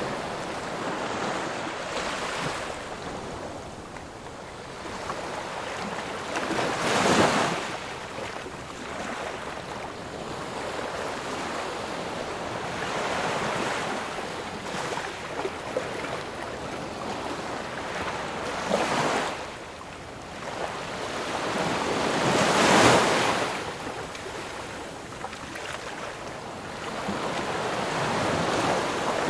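Ocean waves breaking and washing on a shore, a steady surf wash with several louder waves cresting, the loudest a little after two-thirds of the way through.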